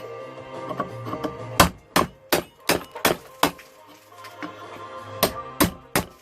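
Hammer striking a chisel to knock the old metal sleeve of a VW T4 wishbone bush out of the arm: about nine sharp metallic blows, six in quick succession, then a pause and three more near the end. Music plays in the background.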